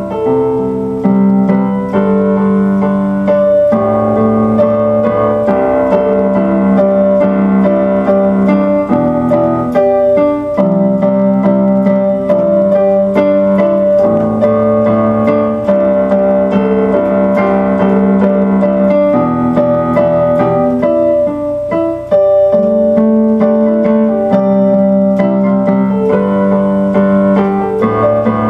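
Piano music played on a keyboard: a slow melody over held chords that change every second or two.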